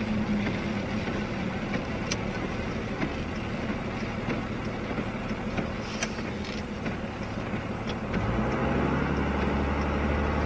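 Inside a pickup's cab on a wet road: steady tyre and road noise with the windshield wipers sweeping. About eight seconds in the engine note comes up and grows louder as the truck accelerates.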